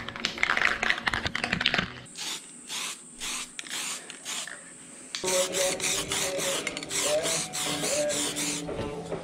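Aerosol can of etch primer spraying onto aluminium in several short bursts, then in a longer, more continuous spray.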